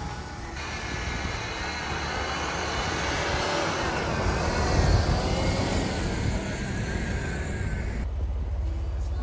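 Jeep engine working hard under a dense rushing noise while pushing through deep snow, loudest about five seconds in. It drops suddenly to a steady low idle at about eight seconds.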